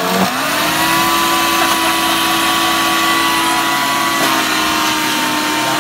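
14-amp electric chipper-shredder motor running with a steady whine while grinding whole bunker into chum. Its pitch sags right at the start and again briefly about four seconds in, as fish are pushed into the hopper and load the motor, then it picks back up.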